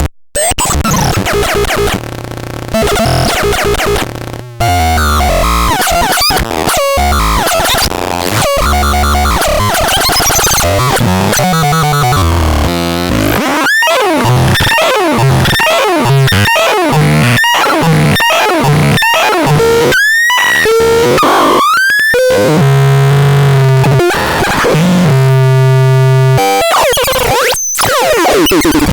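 Harsh glitchy electronic noise, chopped and changing abruptly. It mixes hiss, quick rising and falling chirps and buzzing low tones, with several sudden cuts.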